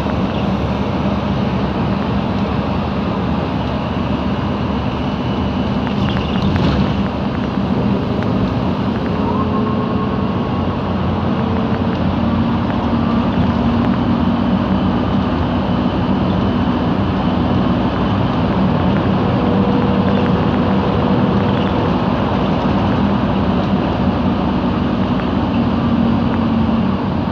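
Cabin sound of a MAN Lion's Classic city bus under way: its MAN E2876 CNG engine and ZF Ecomat 6HP504C automatic gearbox run steadily over road rumble. Faint whining tones come and go above the drive noise, from the differential and gearbox.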